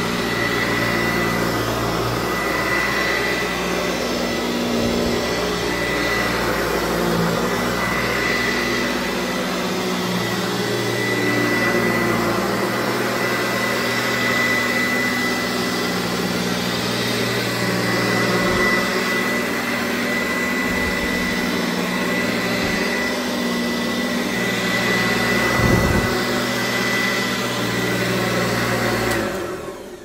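Old Eureka upright vacuum cleaner running steadily over carpet: a constant motor hum with a thin high whine on top. The sound starts dying away right at the end.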